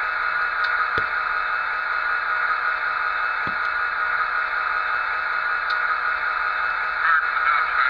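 Radio chatter effect from a LokSound Select sound decoder in an HO-scale EMD F40PH, played through the model's small speaker. A steady, narrow static hiss with two soft clicks, and a muffled radio voice breaking in near the end.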